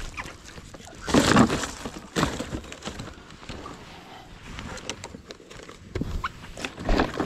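Handling noises: rustling and irregular knocks as a mesh keep net and fishing line are pushed into a plastic basket on a scooter, louder about a second in and again near the end.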